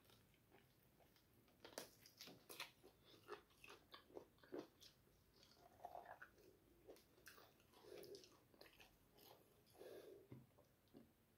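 Quiet close-up mouth sounds of someone biting and chewing food held in both hands: a run of crunchy, sticky clicks and crackles that starts about two seconds in and stops about ten seconds in.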